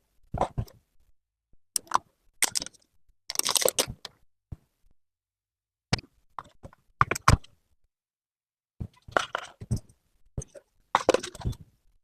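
Smartphone box and packaging being handled during unboxing: scattered clicks, taps and short rustles of cardboard and plastic, with the longest rustle about three and a half seconds in.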